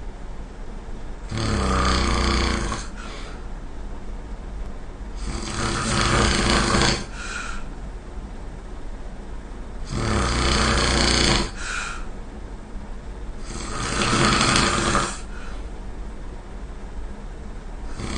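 A person snoring in regular cycles: four long snores about four seconds apart, each lasting about a second and a half, two of them followed at once by a short, quieter burst.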